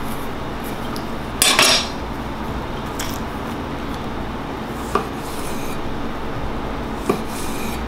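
Chef's knife cutting plums on a wooden butcher block: a longer swish about a second and a half in, then a few short, sharp knocks of the blade meeting the board, over a steady background hiss.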